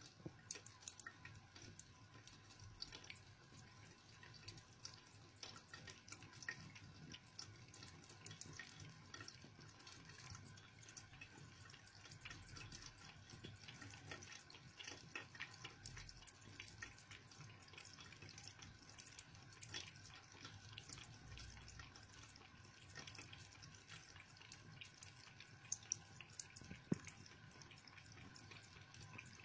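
A cat lapping water from a thin stream running from a bathroom tap: many faint, irregular wet ticks over a soft trickle, with a few louder ticks near the end.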